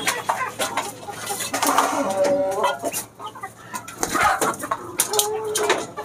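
Chickens clucking in a poultry loft, with a couple of longer drawn-out calls and some scattered clicks.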